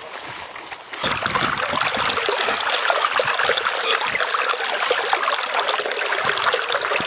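Shallow creek water running and babbling over a gravel riffle, a steady rush with fine trickling, which gets louder about a second in.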